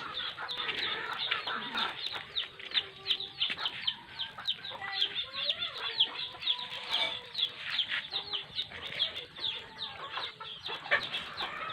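Chickens clucking in a yard, over a steady run of short high chirps, several a second.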